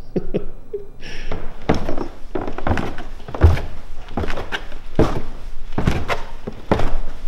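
Footsteps thudding in a steady walking rhythm, about two steps a second, after a few softer knocks in the first second.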